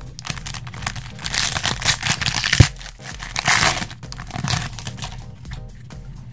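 Foil wrapper of a trading-card pack being crinkled and torn open, with one sharp tap about two and a half seconds in, then the cards slid out.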